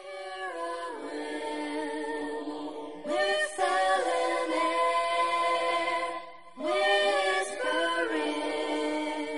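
Background music of sustained, wordless vocal harmonies, like a choir, with new chords swelling in about three seconds in and again about six and a half seconds in.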